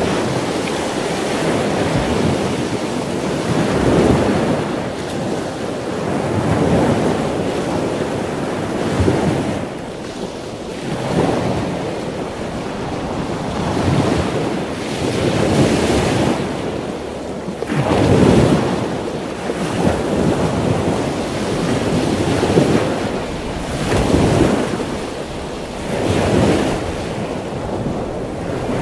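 Sea surf washing in, with wind on the microphone, a rushing noise that swells and fades every two to three seconds.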